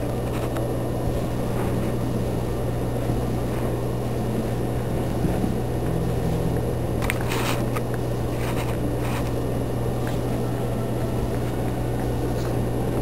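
A steady low hum with a rough low rumble over it, and a few faint soft scuffs and knocks partway through.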